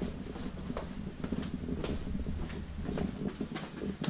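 Footsteps going down brick steps, with irregular scuffs and knocks about once or twice a second over a steady low rumble.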